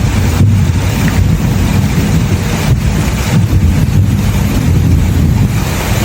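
Loud storm noise: wind buffeting the microphone over a steady deep rumble.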